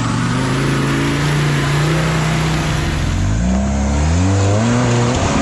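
Off-road rig's engine running steadily, then revved up and down several times from about three seconds in.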